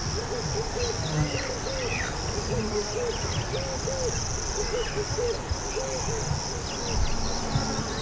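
An insect chorus chirring steadily at a high pitch, over a run of short, low, arched calls repeating about twice a second. Low rustling and soft thuds run underneath, with one stronger thump about seven seconds in.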